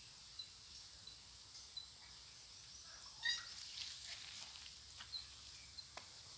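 Puppies giving faint, brief high-pitched squeaks, with one louder whimper about three seconds in, over a steady faint hiss.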